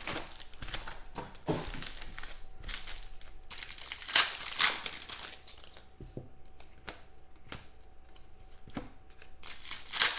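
Foil trading card pack wrappers crinkling and tearing as packs are opened by hand, with loud bursts about four seconds in and again near the end.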